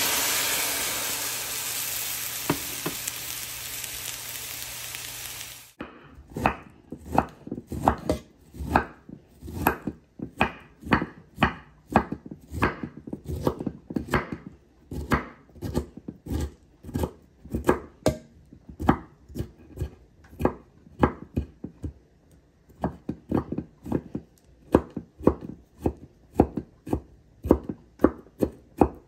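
Water hissing and steaming in a hot skillet of toasted pasilla chiles, fading, then cut off about six seconds in. After that, a chef's knife chopping cooked broccoli on a wooden cutting board, steady strokes about twice a second.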